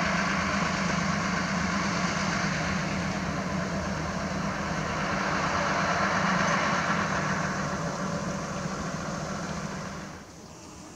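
Lyd1 narrow-gauge diesel locomotive running steadily as it hauls its passenger train past, a low engine hum under the rumble of the train. The sound swells, then fades and drops away sharply near the end.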